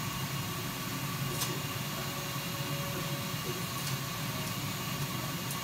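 30-watt CO2 laser cutter running while it cuts acrylic: a steady fan hum and hiss, with a few faint ticks.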